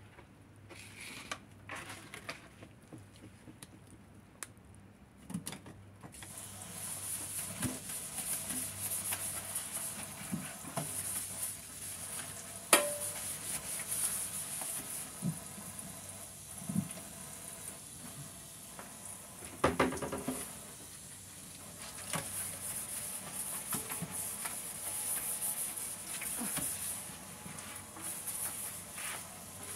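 Kitchen tap running into a stainless steel sink during hand dishwashing, the flow starting about six seconds in, with scattered clinks and knocks of dishes, the sharpest twice, a little before and at about the middle.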